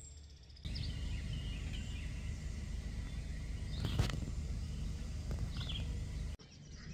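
Outdoor ambience: birds chirping a few times over a steady low rumble. The shot cuts off shortly before the end.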